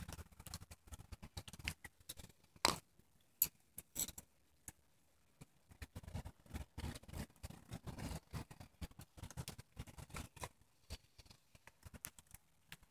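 Rain falling, heard as an irregular patter of close drops ticking and clicking, with two sharper knocks about three seconds in and a quieter lull soon after.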